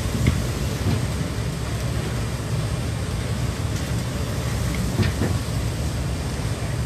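A boat's engine droning steadily under wind and rushing water noise, with a thump just after the start and another about five seconds in.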